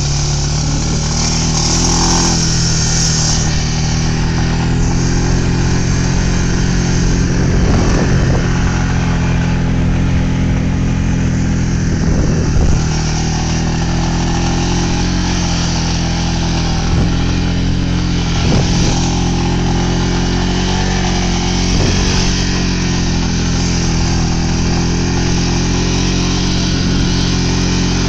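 ATV engine running at a steady, mostly even speed while riding, its pitch shifting only a little.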